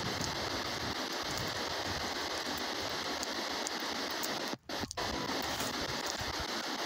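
Steady radio static hiss from an S-Box ghost scanner sweeping through radio stations, with two brief cut-outs about four and a half seconds in.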